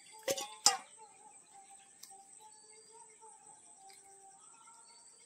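Crickets trilling steadily with birds chirping, and two sharp clicks about half a second in.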